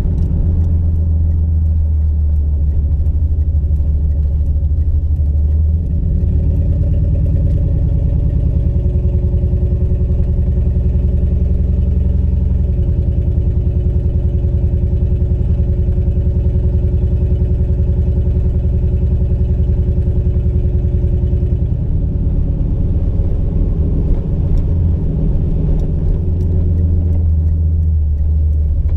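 Turbocharged LQ4 6.0-litre V8 in a Ford Ranger pulling the truck down the road, a steady low drone. Its note shifts about 6, 13 and 22 seconds in.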